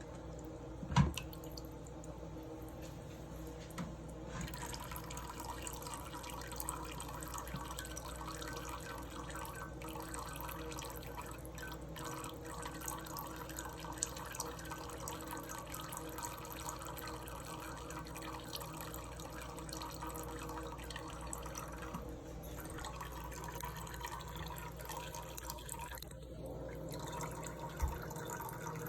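Tap water running in a thin stream and splashing into a sink, steady from about four seconds in. A sharp knock comes about a second in, and a smaller one near the end.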